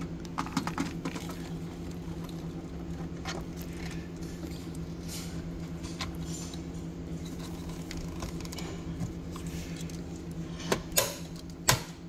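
Light plastic clicks and knocks as a fuse box (battery junction box) is handled and pressed down into its mount, with a few sharper clicks near the end. A steady low hum runs underneath.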